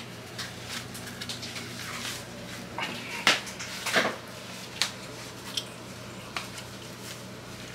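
Fabric rustling and handling noises as soccer socks are pulled up over a child's shin guards, with a few short knocks and clicks, the loudest two a little past the middle. A steady low hum runs underneath.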